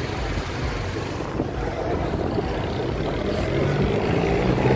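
Street traffic: motorbike and car engines running over road noise, with one engine note rising and growing louder near the end.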